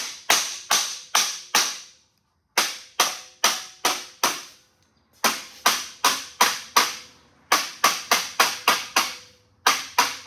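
Rubber mallet tapping 26-gauge galvanized sheet metal over the edge of a clamped wooden board, folding a bend in a tool tray handle. The sharp taps come in quick runs of about three or four a second, with short pauses between runs.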